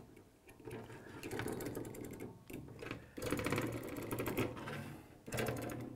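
AR-15 buffer spring being worked through a gloved hand after oiling, its steel coils clicking in a fast, even rattle in two runs with a short pause between.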